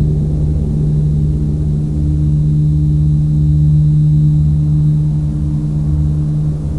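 A sustained low, gong-like drone from the drama's score holds one steady pitch, with a slow throbbing rumble beneath it.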